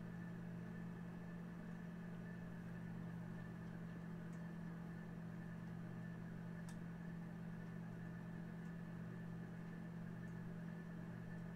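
Steady low hum of a small electric motor driving a slowly turning display turntable, with a few faint clicks.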